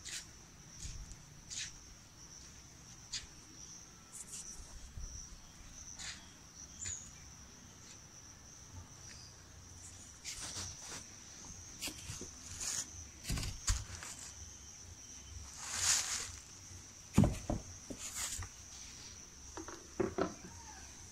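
A steady, high-pitched insect buzz in the background, with scattered light clicks and a few louder crinkling rustles, the loudest about three-quarters of the way through.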